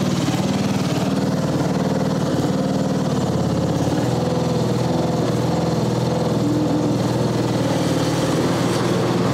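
Briggs & Stratton flathead engine of a 1997 Mastercraft 12.5 hp riding mower running steadily, its pitch wavering slightly.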